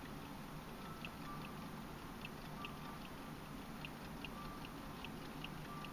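Vintage German mechanical wind-up clock ticking, with light, sharp ticks about two a second.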